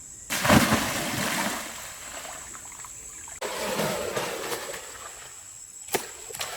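Water splashing and sloshing in two stretches, each starting abruptly, with a single sharp click near the end.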